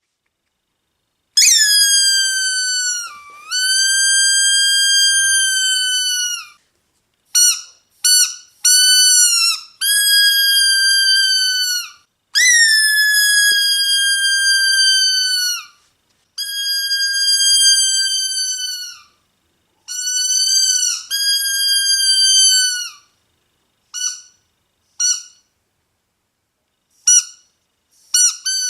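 Squeaky dog toy squeezed over and over, starting about a second in: high squeaks, some drawn out for several seconds and others short and quick, each dipping in pitch as it starts and ends.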